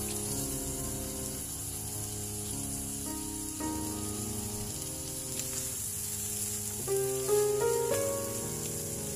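Flaked milkfish with onions and green chili sizzling in a nonstick pan, a steady frying hiss, stirred with a spatula near the end. Background music with held notes plays over it.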